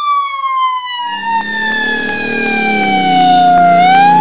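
Emergency-vehicle siren sounding a slow wail: its pitch falls steadily for almost four seconds, then begins to rise again near the end. A low vehicle rumble comes in under it about a second in.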